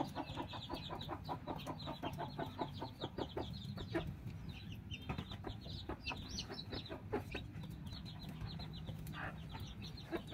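Hens clucking in a quick run of short clucks that thins out about four seconds in, over a low steady hum.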